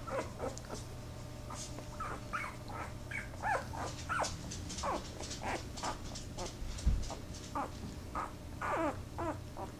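Newborn Podengo puppies whimpering and squeaking: short high calls, many sliding down in pitch, every second or so. A low thump about seven seconds in.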